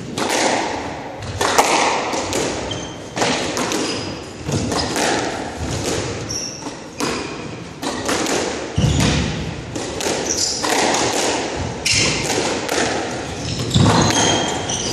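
Squash rally: the ball cracks off the racquets and the front wall in a steady run of sharp hits, about one every half second to a second. Short high squeaks from the players' shoes on the wooden floor come between the hits.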